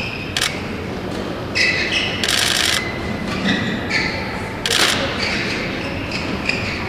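Badminton rally: rackets striking the shuttlecock with sharp cracks, the loudest near the start and about five seconds in. Short high squeaks from court shoes come in between.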